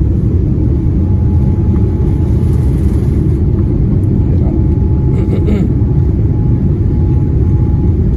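Cabin roar of a Boeing 787-9 Dreamliner, its Rolls-Royce Trent 1000 engines at takeoff thrust as the jet lifts off and climbs: a loud, steady low rumble, with a faint steady high tone joining about a second in.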